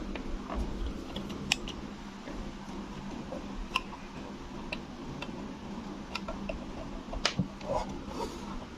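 Scattered small clicks and taps from handling small plastic equipment and cables, about a dozen spread unevenly, the sharpest a little past seven seconds, over a low steady hum.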